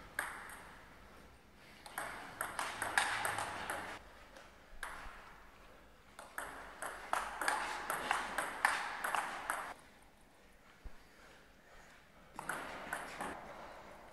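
Table tennis rallies: the ball clicking back and forth off bats and table in quick runs of strikes, several separate points with short pauses between them, the clicks ringing in a large sports hall.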